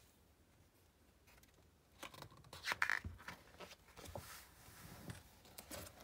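A page of a picture book being turned by hand: paper rustling with a few sharp clicks, starting about two seconds in.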